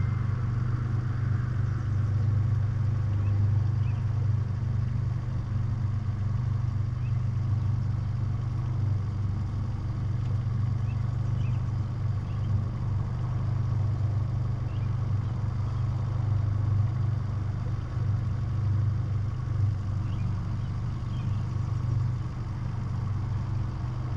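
Small outboard motor running steadily at low trolling speed, a low even hum with no change in pitch.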